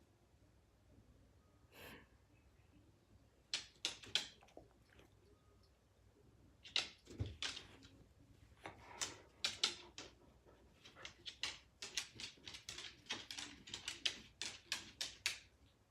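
A run of short, irregular clicks and scratches from pets moving about, sparse at first and coming thick and fast in the second half.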